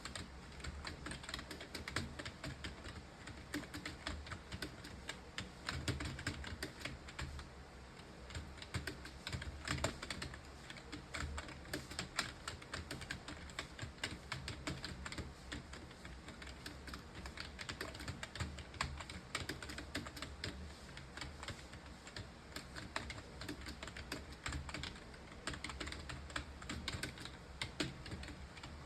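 Continuous fast typing on a computer keyboard: a dense, uneven run of key clicks with a low hum underneath.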